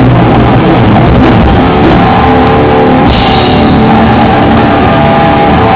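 Guitar and drum kit playing rock together, loud and heavily distorted as from an overloaded microphone.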